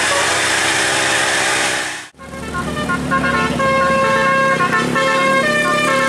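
Loud vehicle engine and road noise that cuts off about two seconds in, then a multi-note musical vehicle horn of the Indonesian 'telolet'/basuri kind playing a melody, its held notes stepping from one pitch to the next.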